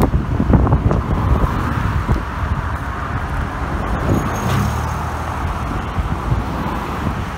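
Road traffic passing close by, with a pickup truck going past about four seconds in.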